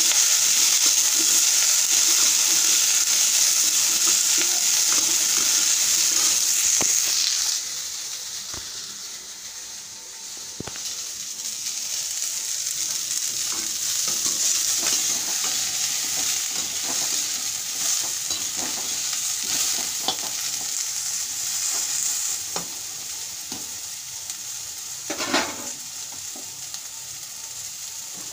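Vegetables frying in a hot pan: a steady sizzle, loud for the first seven seconds or so, then dying down before picking up again more softly. A few light clicks of a utensil against the pan, and a louder scrape about 25 seconds in.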